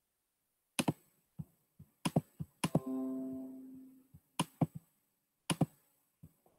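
Computer keyboard keys clicking in short, irregular runs, with one pitched ringing note about three seconds in that fades out over about a second.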